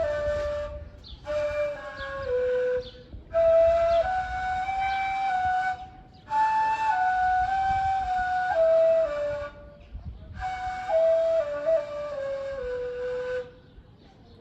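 Ney, the Turkish end-blown reed flute, playing a slow melody in held notes that step up and down. The phrases are broken by short pauses for breath, and the last phrase steps downward.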